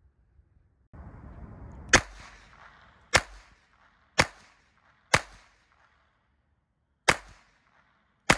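Tanfoglio GT-27 .25 ACP semi-automatic pocket pistol firing six shots, each a sharp report with a short echo. The first four come about a second apart, then there is a pause of about two seconds before the last two.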